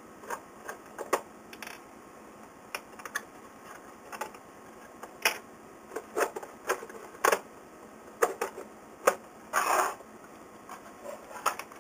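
Irregular clicks and knocks of hands handling a 1930s Bakelite Numechron clock, opening its case to reach the mechanism, with a short scraping rustle near the end.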